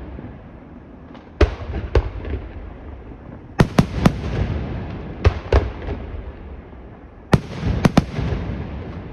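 Aerial firework shells bursting overhead in quick succession: about a dozen sharp bangs in clusters of two or three, each trailing off in a rolling rumble.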